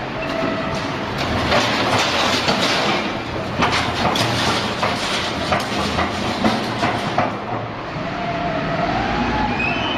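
Scrap metal baler shear at work: loud, continuous clanking and clattering of scrap metal with a steady machine noise underneath.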